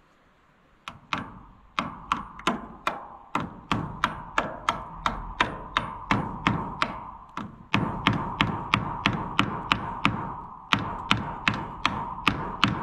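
Steady hand-hammer taps, about three light blows a second, with a ringing tone under them and a brief pause partway through.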